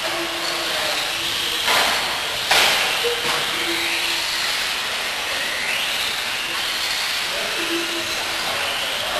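Several electric radio-controlled off-road buggies racing, their motors whining and rising and falling in pitch as they accelerate and slow down, over a steady hiss of tyres on dirt. Two sharp knocks come about a second apart early on, the loudest sounds here.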